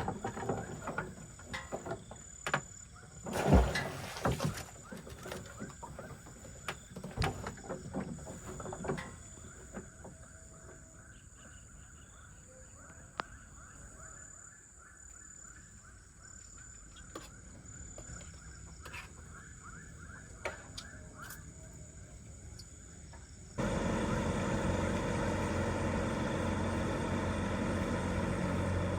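Knocks and clatter of gear being handled over the first several seconds, then a faint night chorus of frogs calling in quick repeated pulses. About 23 seconds in it cuts abruptly to a much louder, dense frog chorus.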